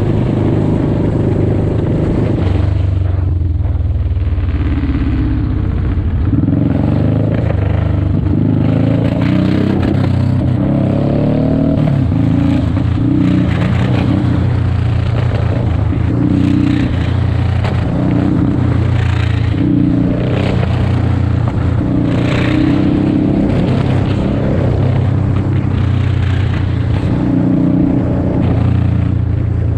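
Motorcycle engine running at low road speed, its note rising and falling with the throttle, over steady wind rush.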